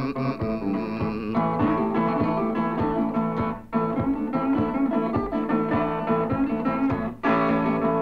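Background music: an instrumental guitar passage in a folk-blues song, with no singing.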